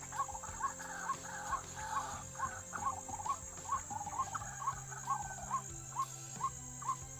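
White-breasted waterhen (ruak-ruak) calling, a rapid regular series of short 'kru-ak' notes about two to three a second, over a steady high-pitched whine.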